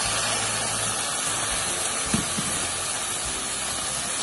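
Vegetables and pineapple chunks sizzling steadily in hot oil in a stainless steel pot, with one short knock about two seconds in.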